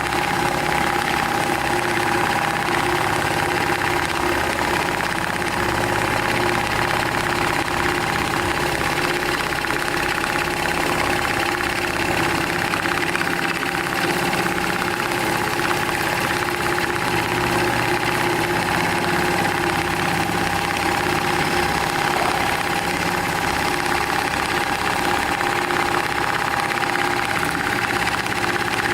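Programmable industrial sewing machine (profile stitcher) running steadily, with a constant whine over the sound of its motor.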